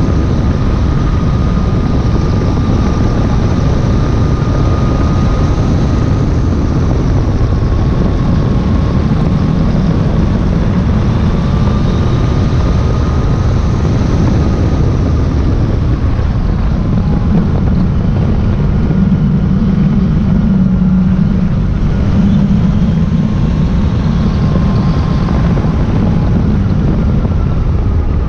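Yamaha Tracer motorcycle ridden at a steady pace, heard from on board: wind rushing over the microphone with the engine's drone beneath it and a thin whine that wavers slightly in pitch.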